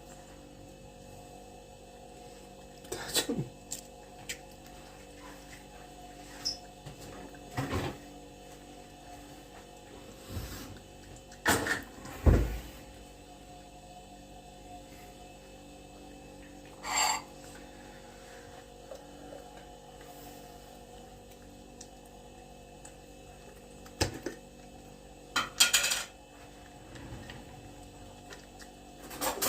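Scattered knocks and clunks of objects being handled, with a heavy low thump about twelve seconds in, over a steady faint electrical hum.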